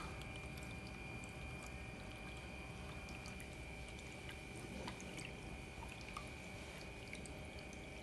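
Tabletop waterfall fountain running: water trickling and dripping steadily into its basin, with a faint steady high whine underneath.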